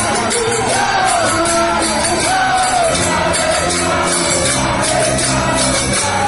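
Devotional kirtan music: a voice singing a wavering chant melody over sustained held chords, with a steady jingling percussion beat.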